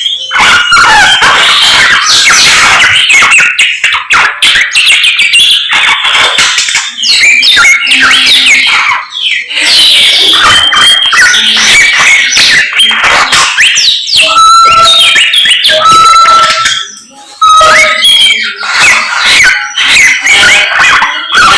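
A songbird known locally as a samyong singing loudly: a rapid, varied stream of chirps, trills and yelping notes, with a few held whistles a little past the middle, barely pausing.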